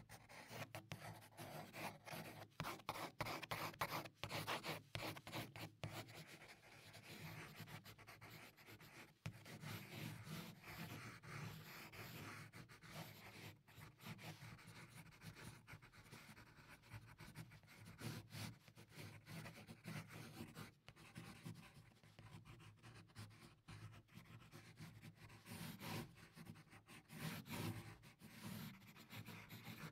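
Faint pencil scratching on paper in quick, short strokes as graphite shading is laid down.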